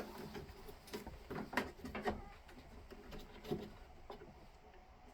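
Scattered light clicks and knocks of hands working a cable fitting loose on a riding tractor: a few quick taps in the first couple of seconds and another a little past halfway.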